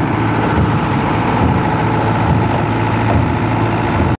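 Transit mixer truck's diesel engine running steadily, together with the rushing hiss of the mixer's high-pressure water hose spraying a motorcycle.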